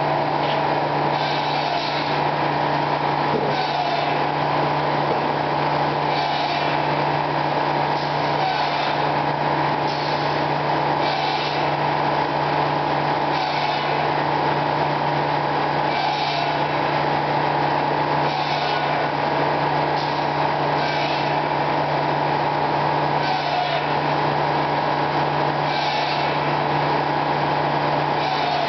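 Circular sawmill running steadily: a constant low hum and whine from the headsaw and its drive, with short bursts of higher-pitched noise every second or two.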